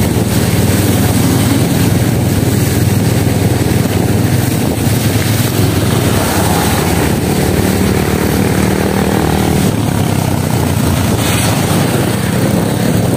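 Motorcycle engine running steadily while riding along a wet road, with a constant rush of wind noise over the microphone.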